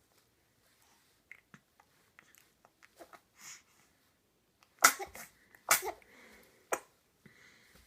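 Two sharp sneezes in quick succession about five seconds in, followed by a shorter burst; small soft rustles and sniffs before them.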